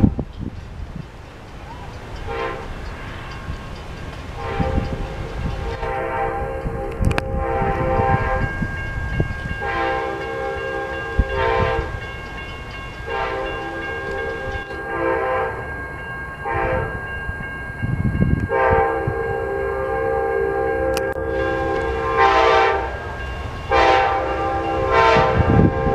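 Approaching train's multi-note air horn sounding a series of long and short blasts, the grade-crossing warning signal, with a short blast near the end.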